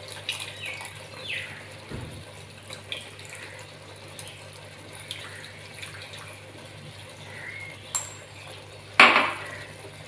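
Tamarind water trickling by hand into a clay pot of simmering curry, a thin stream of liquid falling into the curry. There is a brief louder knock or splash near the end.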